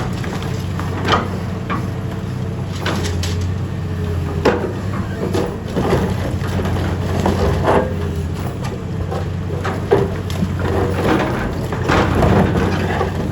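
Excavator engine running steadily under irregular cracks and crunches of concrete being crushed and broken.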